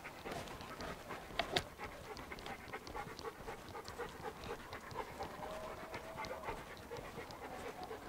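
A German shepherd dog panting, faint and quick, with two light clicks about a second and a half in.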